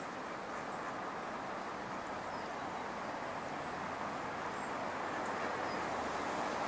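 Steady hiss of road traffic, growing slowly louder toward the end as a vehicle draws near, with a few faint high chirps over it.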